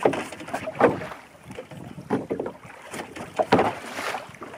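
Sea water slapping and swishing against the side of a small open boat, in irregular bursts, with wind buffeting the microphone.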